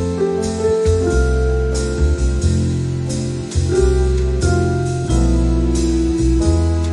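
Instrumental background music: held keyboard notes over a deep bass line, with drum hits.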